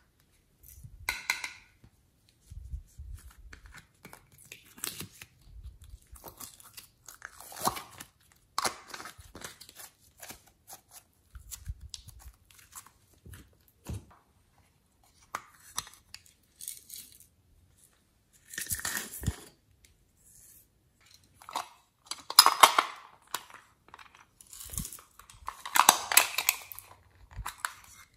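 Small plastic containers being opened and emptied of glitter, and soft clay squeezed from a piping bag, over a tray of slime. The result is intermittent crinkling and rustling with clicks, loudest in a few longer rushes in the second half.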